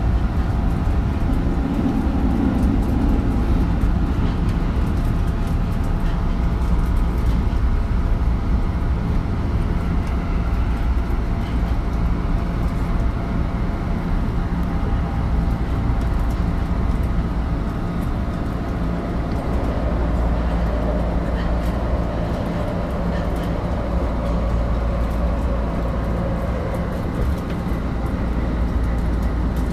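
Tokyo Metro Marunouchi Line 2000 series subway train running, heard from on board: a steady rumble of wheels on rail with a few steady tones over it.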